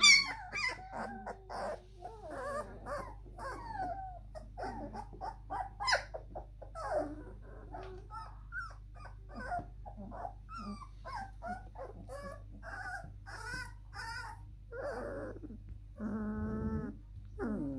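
A litter of three-week-old German Shepherd–Labrador cross (Sheprador) puppies whining and squeaking in many short, high calls that overlap. About sixteen seconds in, one longer, louder, lower whine stands out.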